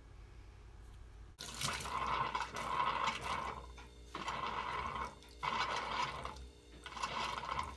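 Heating oil and air spurting and splashing out of an oil filter holder into a plastic container, in about four pulses starting a second and a half in, as a push-pull hand pump blows sludge clear of the oil line.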